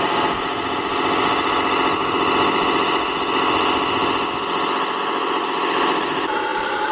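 Radio-controlled scale Jeep Wrangler JK crawler running steadily under load as its wheels dig through deep sand, a continuous pitched motor sound.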